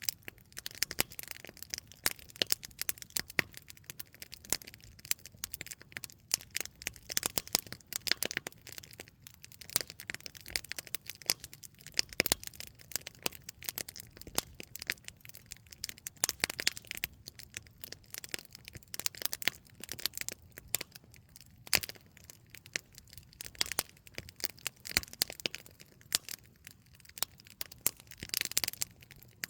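Small wood campfire crackling, with many sharp irregular pops and snaps.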